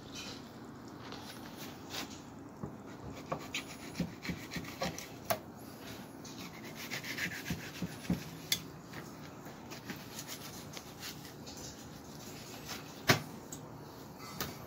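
Knife scraping and slicing along fish skin on a cutting board as skin is taken off trevally fillets, with scattered small taps and one sharper knock near the end.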